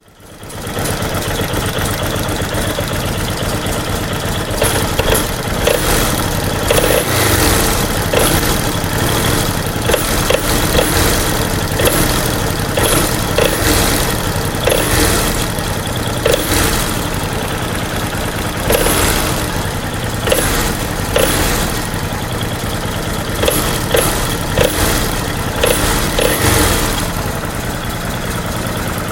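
Kawasaki Vulcan VN750/VN800 V-twin engine running with an engine knock: sharp knocks recur about once a second over the steady engine sound.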